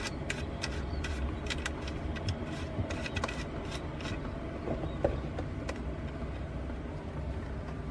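Small clicks and taps of a cable being fastened to a 500 VA power inverter's red screw terminal by hand, scattered through the first half and again around the middle, over a steady low background rumble.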